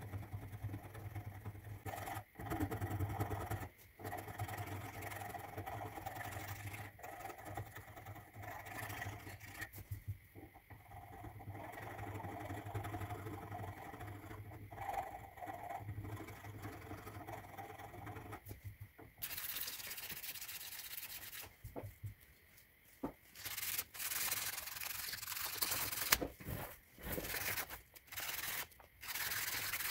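Hand sanding of a stabilized red cedar knife handle: back-and-forth rubbing strokes of abrasive on wood. In the last third the rubbing turns harsher and hissier and comes in separate strokes with short gaps.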